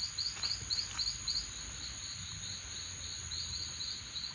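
Insects calling: a steady high-pitched buzz with a run of short, evenly repeated chirps beneath it, about three to four a second.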